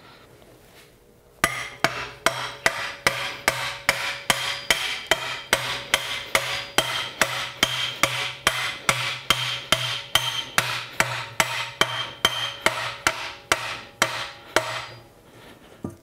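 A hammer striking steel at a steady pace, a little over two blows a second for about thirteen seconds, starting about a second and a half in, the metal ringing between blows, as the steel top of a foundry furnace is driven onto its hinge post.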